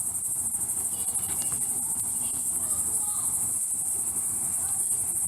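Insects trilling in a steady, high-pitched summer chorus that runs on without a break.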